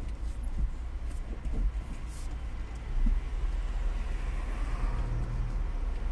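Steady low rumble of a car's engine and road noise heard from inside the cabin while driving, with a brief knock about three seconds in.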